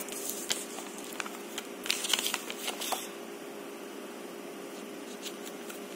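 Packaging being handled: a run of short rustles and clicks over the first three seconds, busiest about two seconds in, then it stops.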